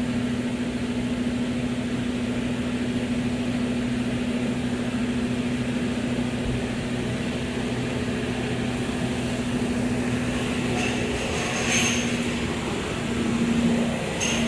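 Toyota Crown engine idling steadily with the air conditioning switched on, its raised idle speed just settled down. A brief clatter comes near the end.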